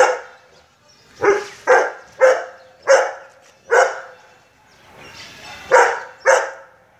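Golden retriever barking: about eight barks, one at the start, a quick run of five about half a second apart, a pause, then two more close together near the end.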